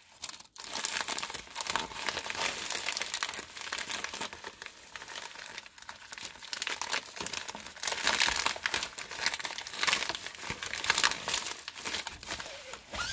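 Plastic mailing bag crinkling and rustling as it is cut open with scissors and torn apart by hand, an irregular run of crackles and small tears that stops abruptly near the end.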